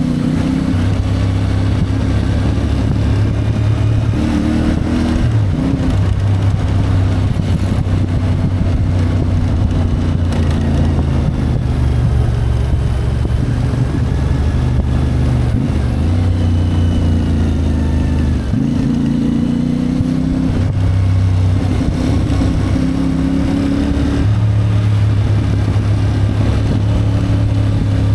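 CFMoto 450MT motorcycle's parallel-twin engine running under way, its engine speed stepping up and down every few seconds with throttle and gear changes.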